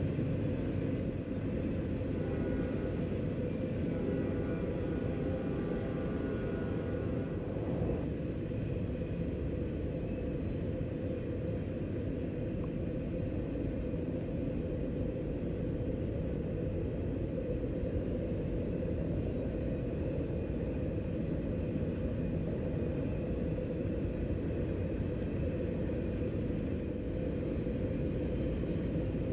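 Steady low rumble of a double-stack container freight train rolling along. A faint chord of held tones sits above the rumble and stops abruptly about eight seconds in.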